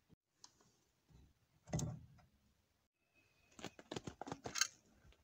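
Faint knocks and clicks of hand tools being handled: one knock about two seconds in, then a quick run of clicks and knocks near the end.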